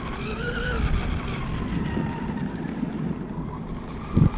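Electric RC hydroplane's motor whining as the boat runs, its pitch rising to a peak about a second in and then sliding slowly down, with wind noise on the microphone.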